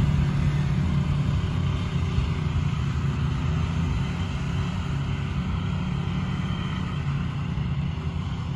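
Off-road vehicle engines running with a steady low rumble.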